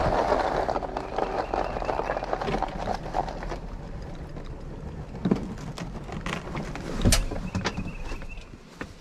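Powered wheelchair driving into a van: a motor-like rushing that fades over the first few seconds, then scattered knocks and a sharp clunk about seven seconds in, with a faint thin whine near the end.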